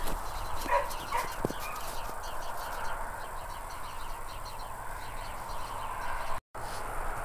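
Sheepdog puppy giving two short yips about a second in, over a steady background hiss.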